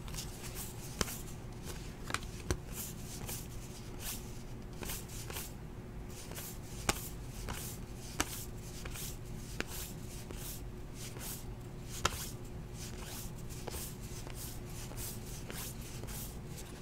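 2018 Topps Heritage baseball cards being flicked and slid through the hands one after another: a quick run of soft flicks with a handful of sharper snaps, over a faint steady hum.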